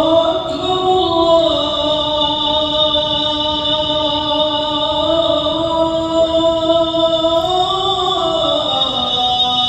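A male muezzin calling the adhan over a microphone, holding one long, ornamented phrase that lifts a little and then falls in pitch near the end.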